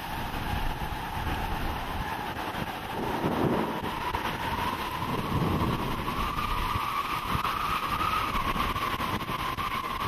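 Steady rumbling noise inside a vehicle, with a thin high whistle that slowly rises in pitch past the middle and eases back down, and a couple of louder swells of rumble.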